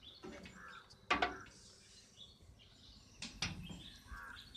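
Metal battery-box lid knocking shut, one sharp knock about a second in and another just after three seconds, with birds chirping in the background.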